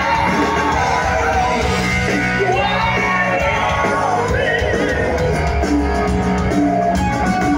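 Live hard-rock band playing: a male lead vocal sung over electric guitar, bass guitar and drums, heard from within the crowd.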